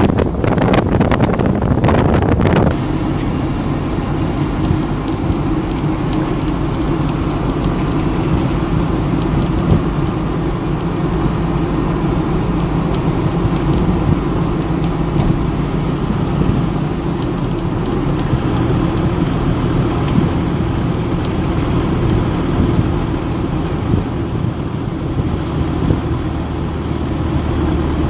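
Wind buffeting the microphone for about the first three seconds, then a vehicle's engine running at a steady cruising speed with road noise, from inside the moving vehicle.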